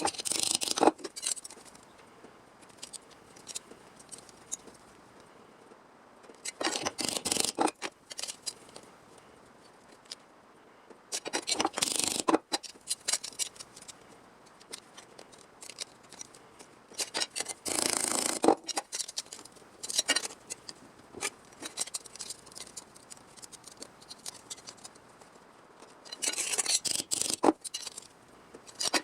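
Hand snips cutting sheet steel for a patch panel, in five separate runs of rapid crunching cuts about a second long each. Small clicks and taps of handling the metal come between the runs.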